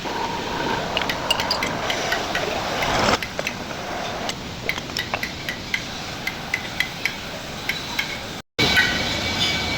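Metal machining on a differential plate: a machine running steadily while the cutting throws off many small, sharp metallic clicks and taps. The sound cuts out briefly near the end.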